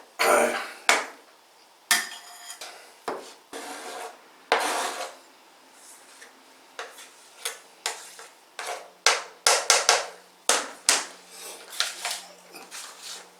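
Kitchen knife working on a cutting board and bowl: irregular sharp taps and knocks, with a few short scrapes, as cooked potatoes are cut for potato salad.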